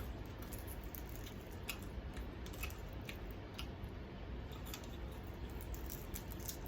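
Close-up eating sounds: crispy fried chicken being chewed, with irregular sharp crunches and mouth clicks several times a second.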